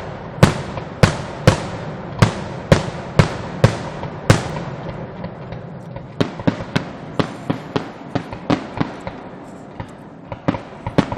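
Fireworks display exploding: a quick run of loud booms about two a second for the first four seconds or so, then quieter, more scattered pops and crackles.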